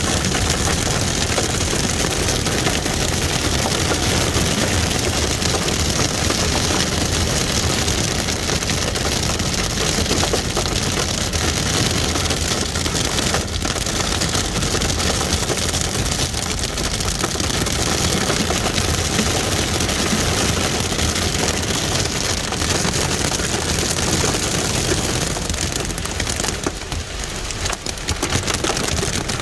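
Hail hammering on a stopped vehicle's roof and windshield, heard from inside the cabin as a dense, steady clatter, easing briefly near the end.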